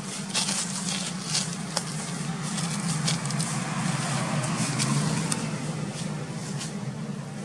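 A steady low motor drone, like an engine running nearby, growing a little louder toward the middle and easing off near the end, with scattered light crackles and ticks over it.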